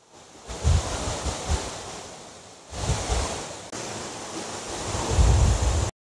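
Steady rushing of a monsoon-swollen waterfall heard close up. Gusts of wind buffet the microphone three times: about half a second in, around three seconds and near the end. The sound cuts off suddenly just before the end.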